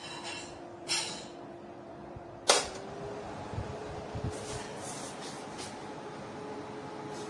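Aigostar Ben tower fan running with a steady whir and a faint hum, with two sharp clicks of its controls about one and two and a half seconds in; after the second click the hum steps up slightly in pitch, as from a change of speed setting.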